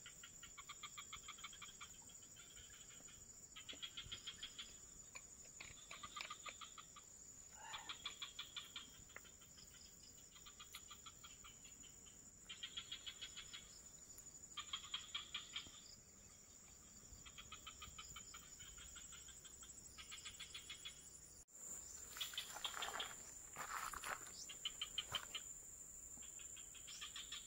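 Faint insects calling: a steady high-pitched drone, with separate rapid trilling chirps about a second long that come roughly every two seconds.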